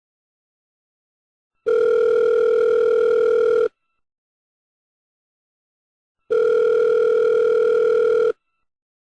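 Telephone ringback (calling) tone: a steady, buzzy tone sounding twice, about two seconds each, with silent gaps of a couple of seconds between. It is the signal that the called line is ringing.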